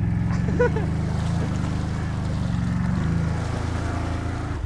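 ATV engine running at steady revs while the quad pushes through water, with splashing and sloshing over the motor's drone.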